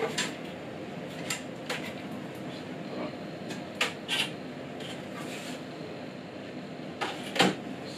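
Unpacking noises from monitor parts and packaging being handled: scattered taps, clicks and rustles, with the loudest knock, something set down, about seven seconds in.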